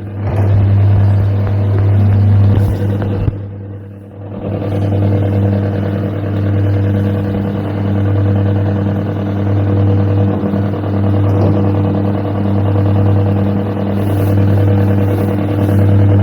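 Coin-operated airplane kiddie ride running: its drive motor makes a steady low hum that fades briefly about four seconds in and then picks up again.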